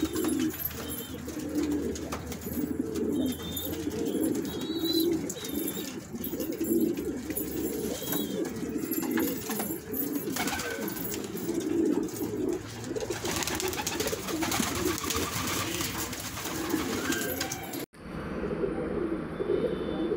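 A flock of domestic pigeons cooing continuously, many birds calling over one another.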